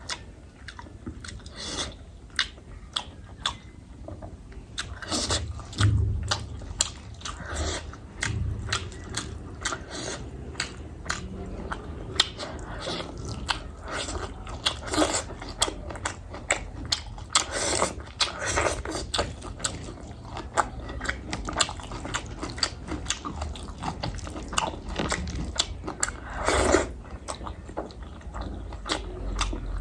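A person eating close to the microphone: chewing and biting food, heard as a steady stream of short, quick mouth clicks.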